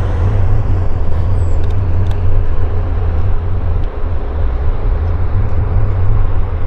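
Steady low rumble under a broad roar of engine noise, the higher part of the roar slowly fading.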